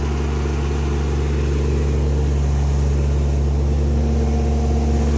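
Kubota KALWEY KR220 two-row combine's diesel engine running steadily, a low even drone.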